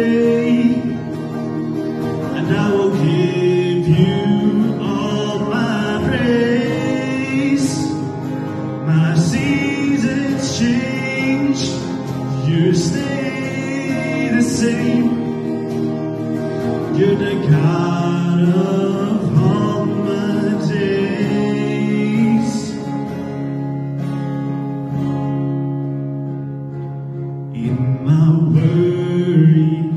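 A man singing a slow worship song into a microphone over amplified guitar accompaniment, with a short instrumental stretch near the end where the voice drops out.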